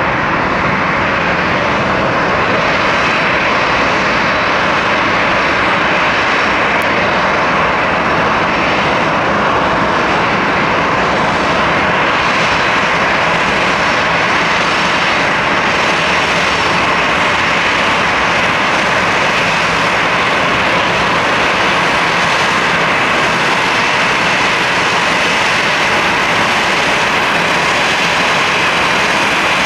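Boeing 737-800's CFM56-7B turbofan jet engines running at a loud, steady level, an even rush of jet noise with a faint high whine above it.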